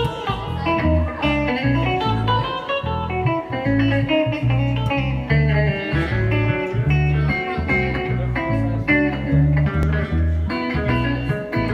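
Live upright double bass and electric guitar playing an instrumental passage of a 1950s country song, the bass thumping out a steady line of changing low notes under a busy guitar lead, with no singing.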